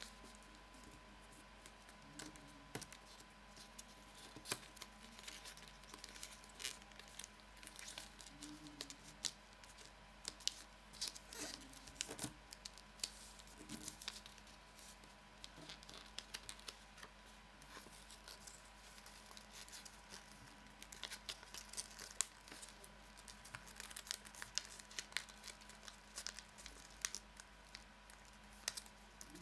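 Origami paper being folded and creased by hand on a wooden tabletop: irregular, scattered crinkles and crackles of the paper as the folds are pressed.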